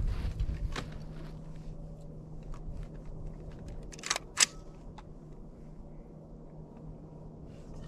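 Quiet handling noise: a low thump at the start, then a few short, sharp clicks, the loudest about four and a half seconds in, over a steady low hum.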